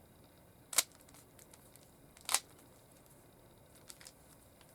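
Plastic Rubik's Cube being handled and twisted: two sharp clacks about a second and a half apart, then a few faint clicks near the end.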